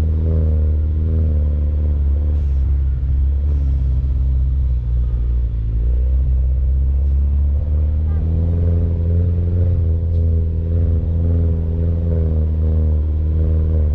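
Mini Cooper Countryman All4 driving, its engine running as a steady low drone whose pitch drifts slightly up and down with the throttle, over a heavy low rumble.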